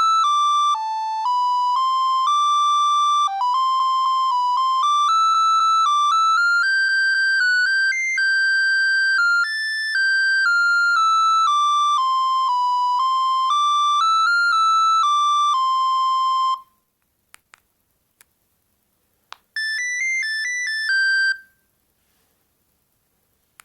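Bird S296 mobile phone playing a ringtone: a simple buzzy tune, one note at a time, that stops about two-thirds of the way through. After a few faint clicks, another short tune plays for about two seconds and cuts off.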